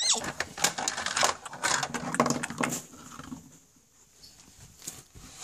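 Plastic toy horses clattering and tapping rapidly against the floor and fence as they are raced along, busiest for the first three seconds and then sparser. A short high squeal falling in pitch comes at the very start.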